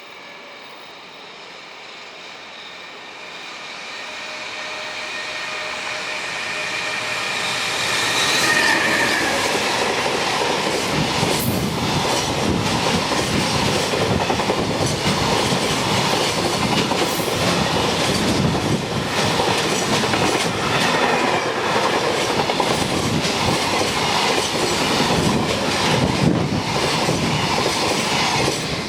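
Electric-locomotive-hauled container freight train approaching and passing close by: a rising rumble with faint whining tones as it nears, then about twenty seconds of loud, continuous wheel clatter and rumble as the long string of wagons runs past, dropping away at the very end.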